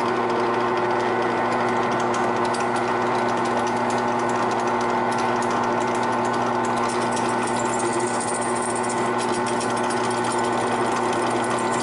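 Benchtop drill press running steadily with a hum, its twist bit drilling through a wooden knife-handle block. Scratchy cutting noise is mixed in, more of it in the second half.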